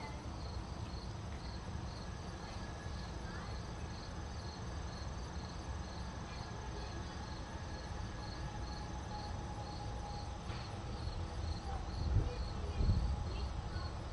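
Insects chirping in a steady rhythm, about three high chirps a second, over a low rumble that swells near the end.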